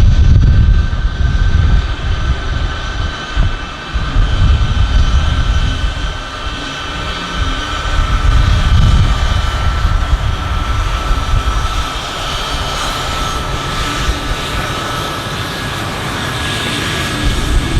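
Military aircraft engines during a flying display: a continuous low rumble under a high steady whine that drops slightly in pitch.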